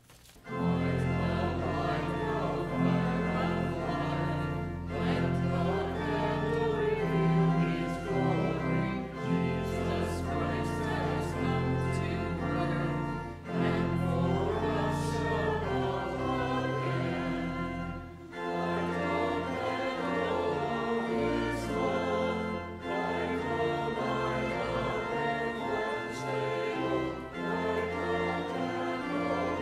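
A group of voices singing together, accompanied by a pipe organ with held low notes. The singing falls into phrases with short breaks about every four to five seconds.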